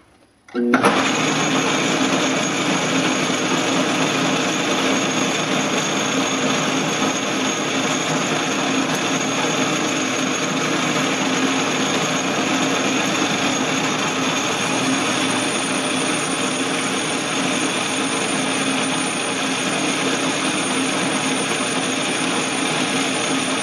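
Atlas-Craftsman metal lathe running under power while its tool takes a turning cut along a round bar toward the tailstock's live center. It is a steady machine noise with a few constant whining tones, starting abruptly about half a second in.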